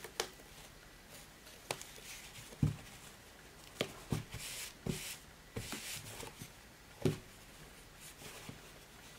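Hands handling a fabric-covered planner on a table: a scatter of soft knocks and clicks as the book is closed, turned and set down, with a short rustle of fabric in the middle.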